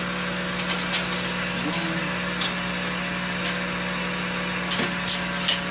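Steady mechanical hum of the CO2 laser engraver's running equipment, with scattered light clicks and taps as a rolling pin is set on the rotary attachment and measured.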